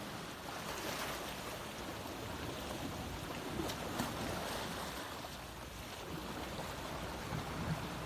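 A steady rushing hiss, with a few light clinks of glass kitchenware as glasses of melted ghee and a glass bowl are handled, around four seconds in and again near the end.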